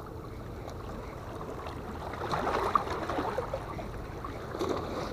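Quiet, steady seaside background of water washing against breakwater rocks, with a low rumble of wind or distant harbour noise beneath it.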